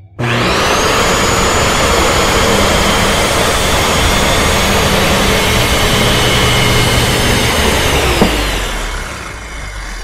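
Corded Skil circular saw starting up and cutting across a 1x12 board: a loud, steady high whine with cutting noise. About eight seconds in, the trigger is released and the motor spins down with a falling whine.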